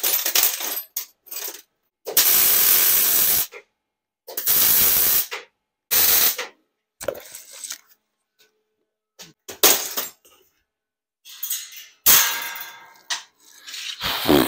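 MIG welder laying a series of short tack welds on stainless steel, each a steady crackling hiss lasting from half a second to just over a second, with a few metallic clinks from handling the pieces between them.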